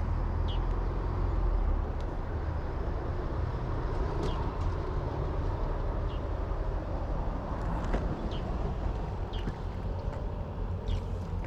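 Steady outdoor rumble, heaviest in the low end, with a few faint, short, high chirps scattered through it.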